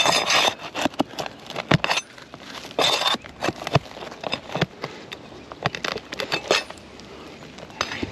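A metal tool prying and scraping under stiff, aged asphalt shingles to work out a roofing nail: irregular clicks and short scraping rasps, with louder bursts near the start, about three seconds in and again after six seconds.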